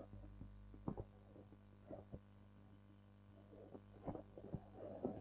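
Near silence: a low steady hum of room tone, with a few faint soft ticks scattered through it.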